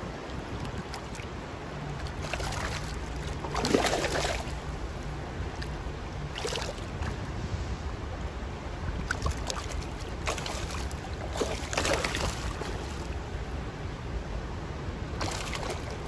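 Shallow creek water rushing over rocks, broken by several brief splashes as spawning carp thrash in the shallows, the loudest about four seconds in.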